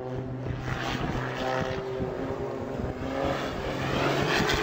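Aircraft engine running as a smoking plane dives, growing louder toward the end.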